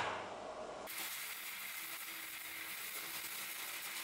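Electric arc welding on a steel axe head: a steady hiss from the welding arc that starts about a second in.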